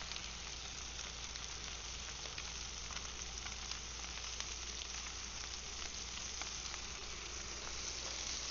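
Yellowfin tuna and grouper fillets sizzling in unsalted butter on a hot grill: a steady sizzle with small crackles and pops.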